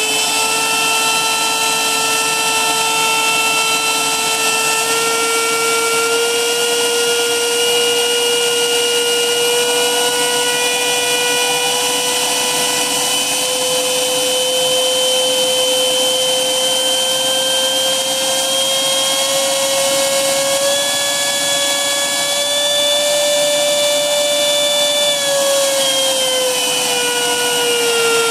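Electric motor and propeller of an RC flying wing running steadily on the bench with a 4S LiPo battery, drawing the battery down to break it in. One steady high whine that creeps slowly up in pitch, then drops back a few seconds before the end as the throttle comes down.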